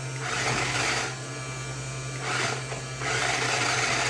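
Remote-control toy dinosaur's small electric motor and plastic gears whirring in spurts, starting and stopping as the controls are pushed.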